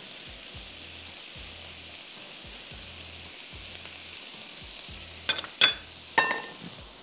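A pot of biryani sizzling steadily on the stove, then three sharp metal clinks of a utensil against the pot a little after five seconds in.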